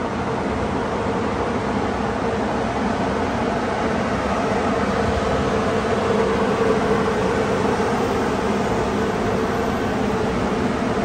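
TriMet MAX light-rail train pulling into an underground tunnel station and slowing to a stop, a steady rumble with a constant hum, loudest about six to seven seconds in.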